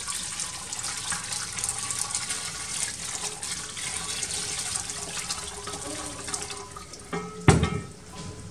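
A steady stream of water poured from a kettle through a metal mesh sieve into a pot, splashing. The pouring tails off near the end, followed by one sharp knock.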